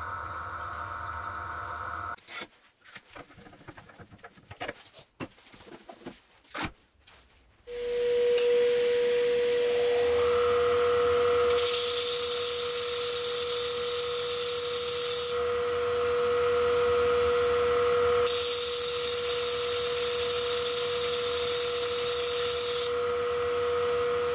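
Small handling knocks, then a Record DML320 wood lathe starts up about eight seconds in and runs with a steady whine. Twice, for about four seconds each, a small wooden acorn is pressed against a disc spinning on the lathe, adding a hiss.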